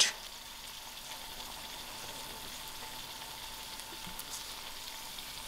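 Methi and potato curry with tomatoes sizzling steadily in oil in the pot on the stove, cooked down and nearly done.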